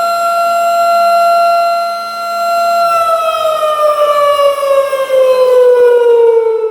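Tornado warning siren sounding a steady high wail, then winding down about three seconds in, its pitch falling steadily through the rest.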